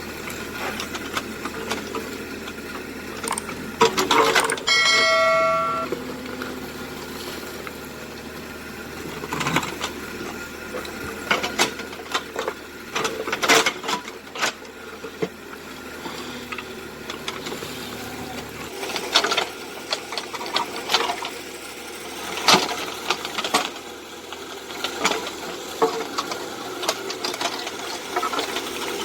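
Kubota KX91-3 mini excavator working: its diesel engine running steadily under repeated knocks and clanks, with a short metallic ring about five seconds in.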